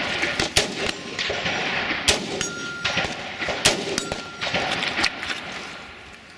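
Rifle shots at steel targets, about four shots roughly a second and a half apart, with the steel plates ringing after hits.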